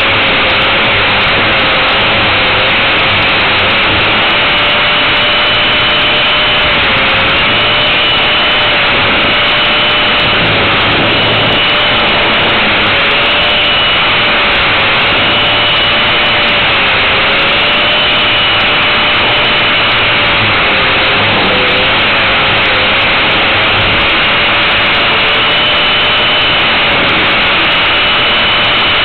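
Electric motor and rotor of a 450-class RC helicopter heard from a camera mounted on the helicopter in flight: a steady whine over loud rushing noise, the pitch dipping briefly now and then as the load on the rotor changes.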